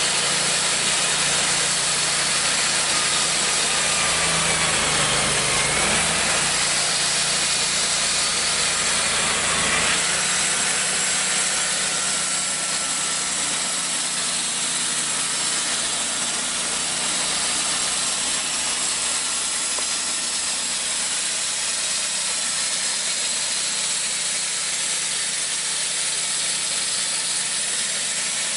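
Gas engine of a TimberKing portable band sawmill running under a steady loud hiss. The engine's low tone drops away about ten seconds in, and the hiss carries on.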